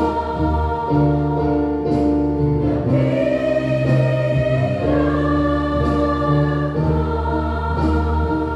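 Worship song: women's voices singing into microphones over a held instrumental accompaniment with a deep bass, the chords changing every second or two.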